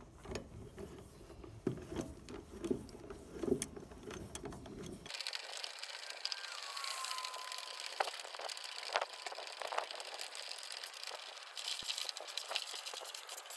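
Socket ratchet wrench clicking in irregular runs as it is worked back and forth on a speed binder's 14 mm drive, slowly winding the chain binder's worm-gear screw in by hand.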